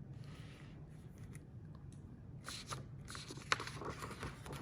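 Faint paper rustling with a few soft clicks, one sharper than the rest: the pages of a picture book being handled and turned.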